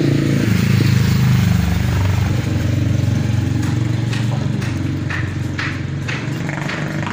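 A small engine running steadily nearby, a loud, low pulsing rumble. A few light clicks come in the second half.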